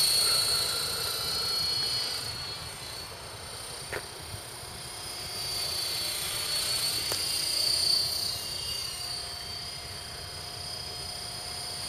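KDS 450 electric RC helicopter in flight: a steady high-pitched whine from its motor and rotor, louder as it passes close at the start and again about eight seconds in, fainter as it flies off.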